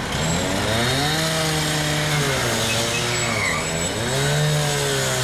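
A firefighter's petrol-engined power saw revving up and holding at high speed. It drops back briefly about three and a half seconds in, then revs up and holds again.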